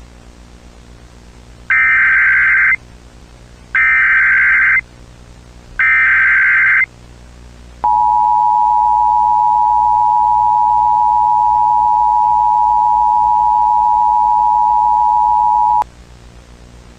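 Emergency Alert System tones: three data-header bursts of about a second each, a second apart, followed by the two-tone attention signal held steady for about eight seconds and then cut off sharply. A low hum and static hiss run underneath.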